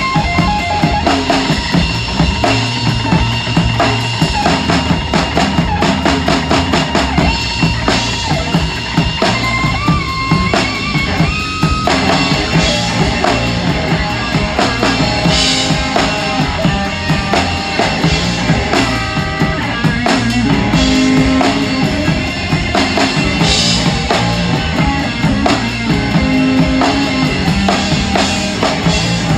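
Rock drum kit played live at full volume, with a large 26-inch bass drum, snare hits and ride and crash cymbals in a steady beat. The rest of the band's sustained guitar and bass tones play behind it.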